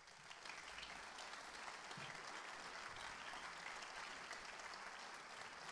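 Audience applauding, swelling over the first half second and then holding steady.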